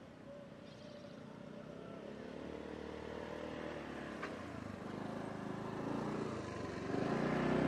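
A vehicle engine humming as it approaches, growing steadily louder and stepping up in level near the end.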